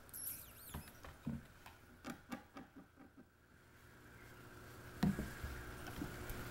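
A two-legged cat's front claws and paws scratching and knocking on a carpeted cat tower as he pulls himself up: a run of quick soft knocks and scratches, then a louder thump about five seconds in.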